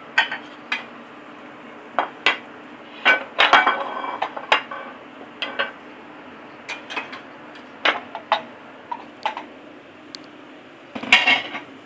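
Dishes and cutlery clinking and clattering in a kitchen, about fifteen sharp separate clinks with a quick run of them near the end, over a low steady hum.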